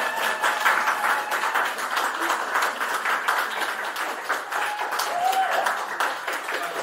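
Audience applauding and clapping, with a voice calling out briefly about five seconds in.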